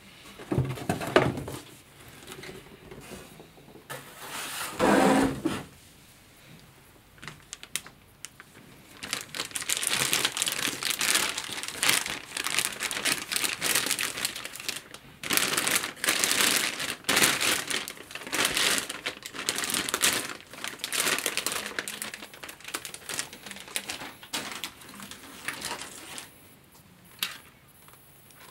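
Clear plastic bag crinkling and rustling as a handheld stick vacuum's main body is pulled out of it, in long stretches of dense crackling. There are two louder bursts of handling noise about a second and about five seconds in.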